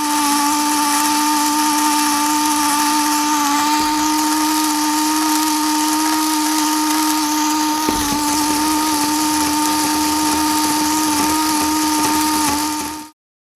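Small electric motor driving a 3D-printed plastic two-speed gearbox, running with a steady whine and whir of plastic gears. There is a faint click about eight seconds in, and the sound cuts off suddenly near the end.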